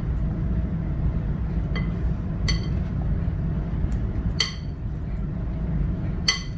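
Glass mixing bowl clinking sharply four times, each with a brief ring, as a hand kneading dough in it knocks against the glass, over a steady low hum.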